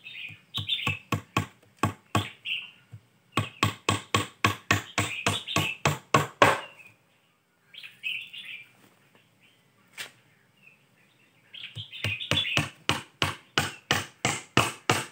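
Hammer blows on a wooden board lid sitting on a hollowed fishtail-palm log beehive, in quick runs of about four strikes a second broken by pauses. Birds chirp in the gaps.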